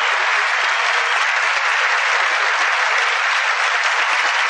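A large audience applauding, steady and sustained.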